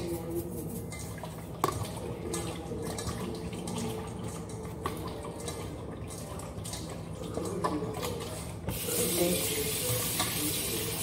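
Tap water running into a kitchen sink as raw chicken is washed and rubbed with salt, with scattered light knocks. The water gets much louder about nine seconds in.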